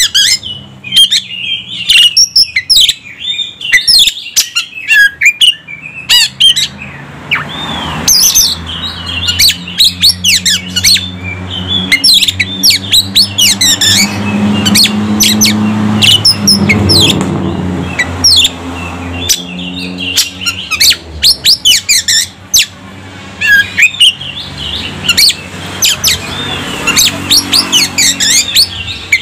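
Oriental magpie-robin singing a loud, rapid, varied string of sharp chirps, whistles and trills, a full repertoire with mimicked phrases of other birds. A low hum runs beneath the song through the middle and again near the end.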